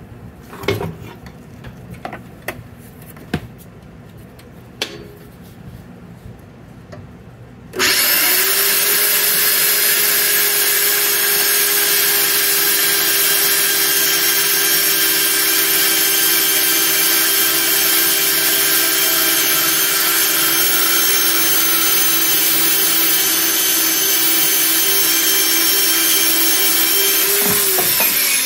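A few handling clicks and knocks, then about eight seconds in, a handheld electric saw starts abruptly and cuts steadily through black iron pipe for about twenty seconds. Near the end it winds down, its pitch falling.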